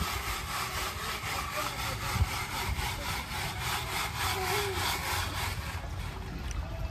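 Rhythmic rasping scrape of dirt and gravel being worked through a gem-mining sifting screen, about four strokes a second, fading out about five and a half seconds in.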